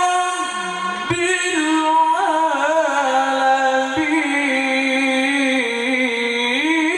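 A male qari reciting the Qur'an in the melodic tilawah style into a microphone, holding long notes with wavering ornaments. The voice dips and breaks about a second in, then starts a new long phrase.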